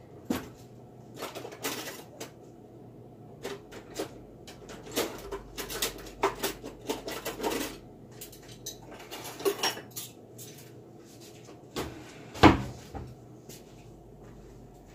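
Kitchen clatter: dishes and utensils clinking and knocking in a string of separate short hits, with one louder knock a little after twelve seconds in.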